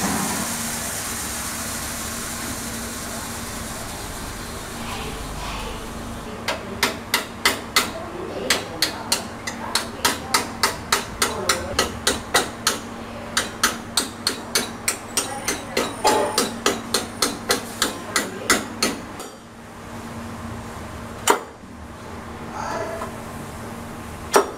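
Hand hammer striking metal workpieces, a long run of sharp, rapid blows at about two to three a second, then two single blows near the end.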